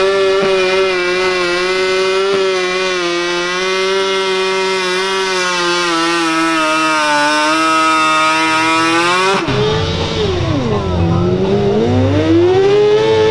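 A 1500cc modified garden tractor's engine runs at high revs under load, pulling the sled, its pitch held steady and sagging slowly. About nine seconds in, after a cut, another modified garden tractor's engine bogs down sharply in pitch and then revs back up.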